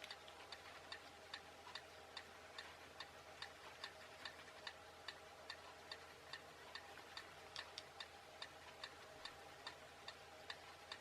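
Faint, regular ticking of a clock, about two ticks a second, over a faint steady hum.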